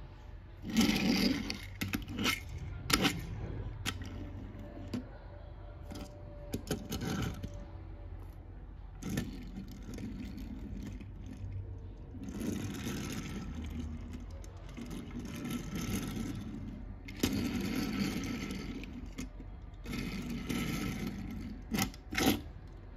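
Small die-cast Minions toy cars being pushed by hand, their wheels rolling and scraping over a plastic table sheet in patches of a second or two, with sharp clicks and knocks as the cars bump into each other.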